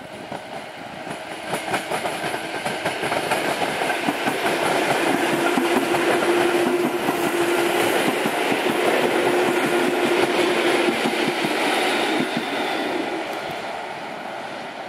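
Two coupled PKP EN57 electric multiple units passing at speed, wheels clattering rhythmically over the rail joints. The sound swells as the train approaches, holds through the middle with a steady whine, and fades near the end as it draws away.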